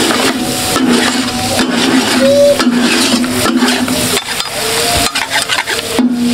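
Two flat metal spatulas scraping and knocking on a large iron tawa griddle as chicken masala is stirred and gathered, with many short scrapes over a steady low hum.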